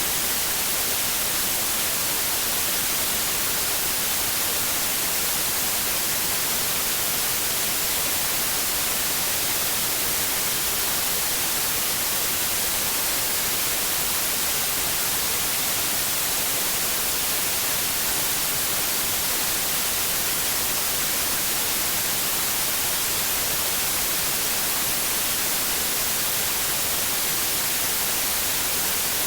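White noise: a steady, unchanging hiss, brightest in the high end, with no breaks or changes.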